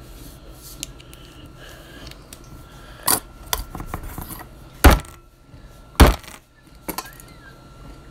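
Sharp knocks as a small metal bearing is banged into a fidget spinner: three loud hits about three, five and six seconds in, with a few lighter taps between.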